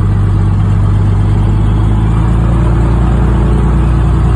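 Zlin 142's Walter M337 inverted six-cylinder engine and propeller running steadily as the aircraft taxis, a loud low drone.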